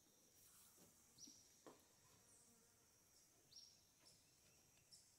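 Near silence: faint outdoor ambience, with a steady high insect drone and a bird giving a few short, falling high chirps.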